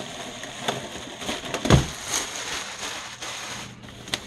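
Cardboard and plastic packaging crackling and rustling as a boxed countertop grill is unpacked, with scattered clicks and one heavy thump a little under halfway through.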